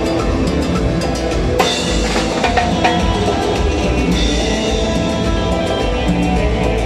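Live band music from timbales, keyboard and electric guitar over a steady drum beat, with a cymbal crash about a second and a half in.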